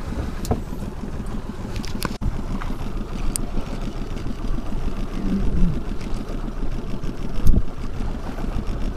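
Steady low rumble of wind and water around a small open boat at sea, with a few sharp clicks from handling and one louder knock near the end.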